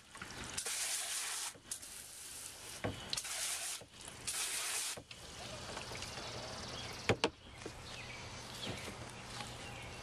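Garden hose spray nozzle on its shower setting hissing in four short bursts in the first five seconds, rinsing loosened algae off an algae scrubber screen. Then a quieter stretch with two sharp knocks about seven seconds in.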